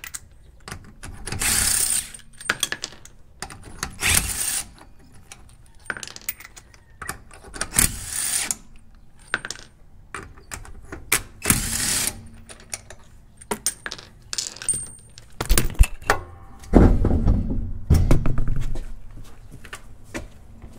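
Cordless impact wrench hammering the lugs loose on a VW bus's rear wheel in about four short bursts, with metallic clinks of loosened lugs and the socket in between. Heavier knocks come near the end as the wheel is pulled off the drum.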